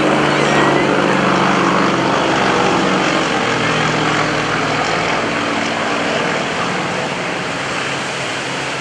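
Radial engine and propeller of a single aerobatic trainer plane passing and pulling up, a steady droning engine note that fades after about six seconds as the plane climbs away. A steady hiss runs underneath.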